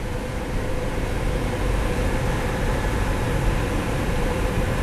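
Car driving along a dirt road, heard from inside the cabin: steady engine and tyre noise with a low rumble.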